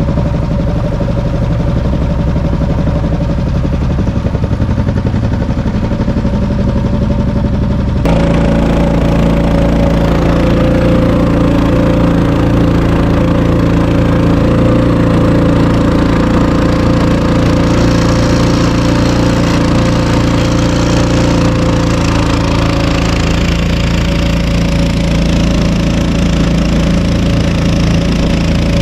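Small outboard mud motor on a boat running steadily under way, with water wash. About eight seconds in it abruptly gets louder, with more rushing noise.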